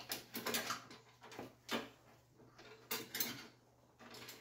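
Wiring-harness wires and connectors being handled and pushed together: a string of short, irregular clicks and rustles over a faint steady hum.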